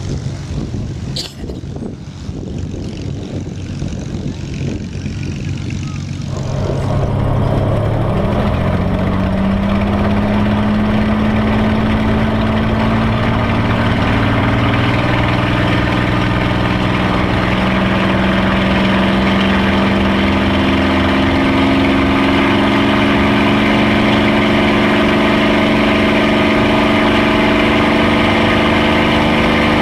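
Spitfire's Rolls-Royce Merlin V12 running at low power as the aircraft taxis on grass. For the first six seconds it is heard from outside as a low, uneven rumble; then it is heard from inside the cockpit, louder and steady, with a pitched drone that rises slightly about nine seconds in and then holds.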